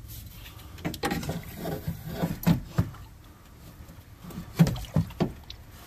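Irregular knocks and clatter of hard objects being handled, in two bursts: one about a second in and another around four and a half seconds in.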